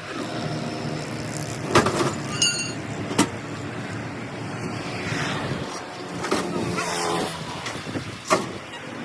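An engine running steadily, with a few sharp knocks over it.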